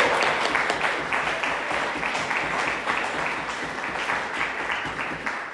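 Audience applauding: a roomful of people clapping, gradually dying down.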